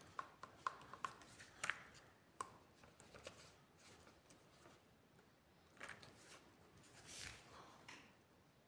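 Faint clicks and rubbing of hard plastic as a black hose connector is turned and fitted onto a mini car washer's fitting: a quick run of sharp clicks in the first couple of seconds, then softer handling noise.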